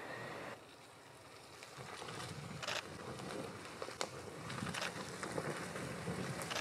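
Land Rover Defender 90 P300 with its 2.0-litre four-cylinder petrol engine, driven slowly down a muddy woodland track, its low engine and tyre rumble growing louder from about two seconds in as it comes closer. A few sharp cracks stand out above it.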